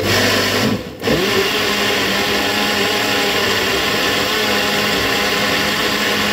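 Countertop jug blender running loudly as it blends a runny batter of soaked red lentils, yogurt, eggs and olive oil. About a second in the motor briefly dips and picks up again, then it runs steadily.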